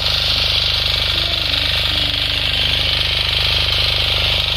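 Small walk-behind power tiller's engine running steadily, with an even, fast pulse.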